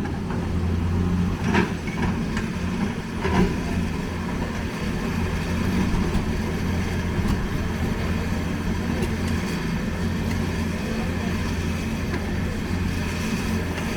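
Heavy machinery diesel engine running steadily with a low, even hum, with two short knocks in the first few seconds.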